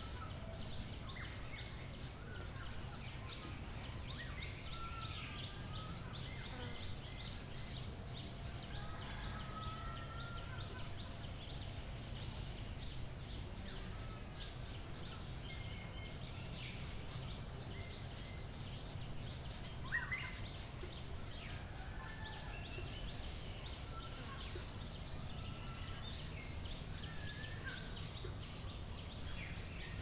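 Rural village ambience: a steady low rumble under many birds chirping and calling, with a dense high chatter. A single sharp knock stands out about two-thirds of the way through.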